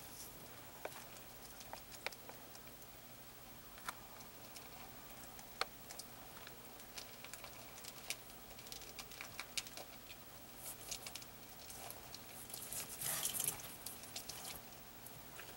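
Biak tree monitor eating an insect: faint, scattered sharp clicks and crunches. A denser crackling rustle comes about thirteen seconds in.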